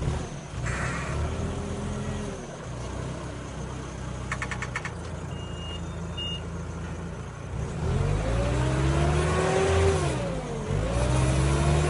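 Merlo loader's diesel engine running the Spedo Fruipick olive tree shaker's hydraulics, with engine speed rising sharply about eight seconds in as the shaker head works the trunk, then dipping briefly near the end and picking up again. Two short high beeps sound about halfway through.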